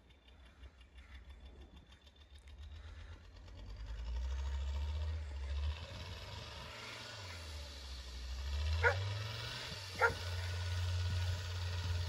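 A vehicle's engine rumbling as it drives closer, growing louder about four seconds in, then dipping and picking up again. A dog barks twice, about nine and ten seconds in.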